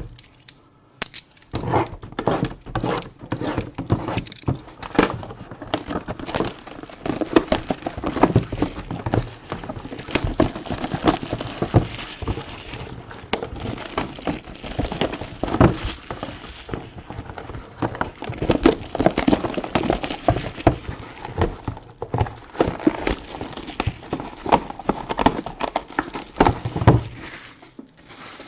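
Trading card blaster boxes and packs being torn open by hand: cardboard ripping and wrappers crinkling, with many sharp clicks and crackles.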